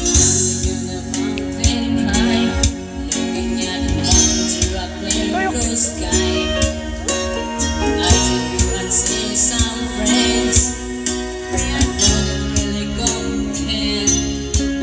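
A song playing: singing over guitar and other instruments.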